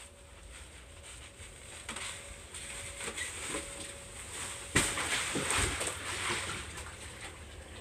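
A person falls into a hot tub: one loud splash about five seconds in, then water sloshing in the tub as it settles.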